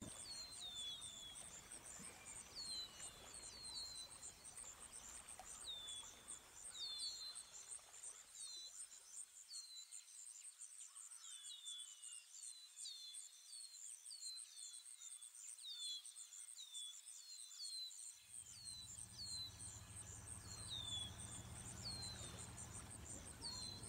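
Outdoor nature ambience: a steady high cricket trill with many short, falling bird chirps over it. A faint low rumble underneath drops away for several seconds in the middle.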